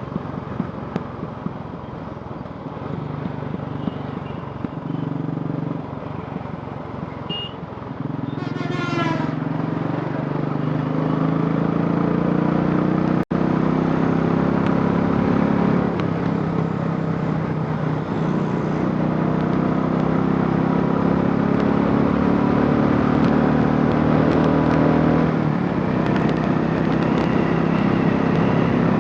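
Royal Enfield Classic 500's single-cylinder engine, converted from fuel injection to a carburettor, running steadily. It gets louder about eight seconds in and stays at the higher level. A brief rising whistle-like glide comes near nine seconds, and the sound cuts out for an instant a few seconds later.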